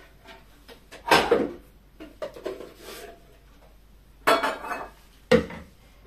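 Kitchenware clattering and knocking as a bowl is taken out of a lower kitchen cabinet and set down on the counter: a loud knock about a second in, a run of smaller clatters, and two more knocks near the end.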